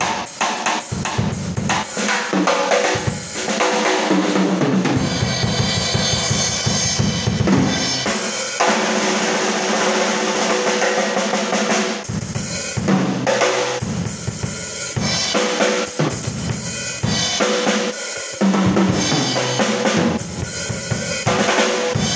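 Pearl acoustic drum kit played as a solo: busy patterns and fills across snare, toms and bass drum, with cymbal crashes that ring on through the middle stretch.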